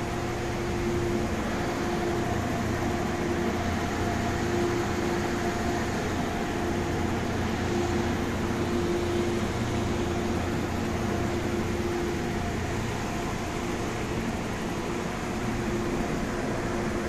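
Stationary MTR Tung Chung Line A-Train (Adtranz-CAF electric multiple unit) humming with its air conditioning and auxiliary power running after start-up. A steady drone with a higher tone that fades in and out every few seconds.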